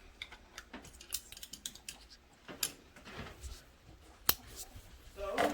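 Handling noises: a run of small clicks and taps, with one sharp click about four seconds in and a short muffled sound near the end.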